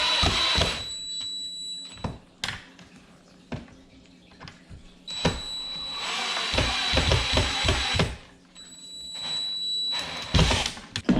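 Cordless drill driving wood screws into a wooden block: three runs of motor whine, a short one ending about a second in, a longer one in the middle and a brief one near the end. Sharp knocks from handling the tool and wood fall in the quiet gaps.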